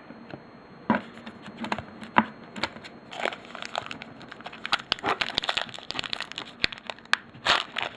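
Foil trading-card pack wrappers crinkling and cards being handled, a run of short irregular crackles and clicks that grows busier near the end.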